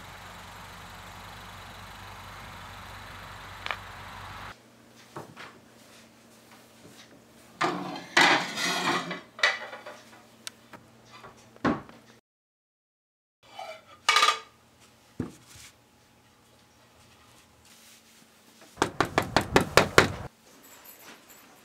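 Dishes and cutlery clinking and clattering in scattered bursts. Near the end comes a quick run of about ten sharp strikes in a second and a half.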